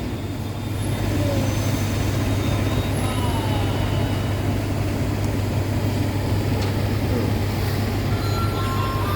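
The diesel engine of a standing passenger train runs with a steady low hum, over a general noise haze.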